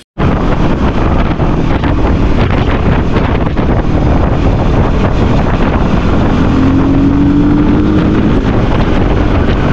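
Wind rushing over the microphone of a motorcycle at road speed, with the Voge 300 Rally's single-cylinder engine running beneath it. A faint engine tone rises gently about two-thirds of the way through.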